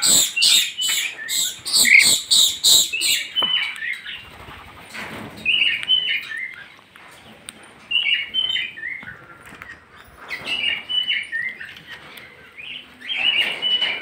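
Sun conures, small orange-and-yellow parrots, calling: a rapid run of loud, shrill shrieks for about the first three seconds, then shorter bursts of chattering calls every two to three seconds.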